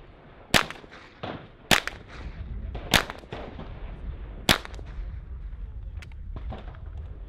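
AR-style semi-automatic rifle firing four loud single shots, spaced a little over a second apart, each with a short echo. Fainter shots come between them and near the end.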